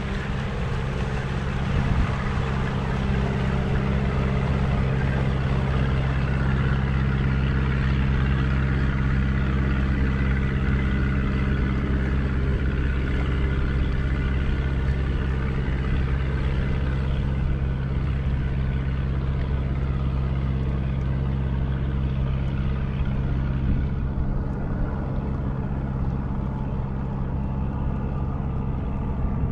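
Boat engine running steadily, a low even drone with water and wind hiss over it.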